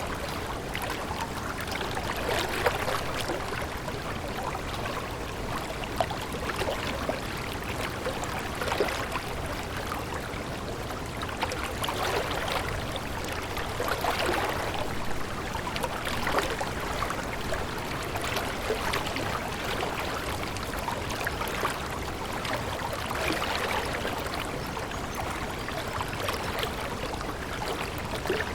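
Flowing water, as of a small stream, babbling steadily with many small splashes and trickles.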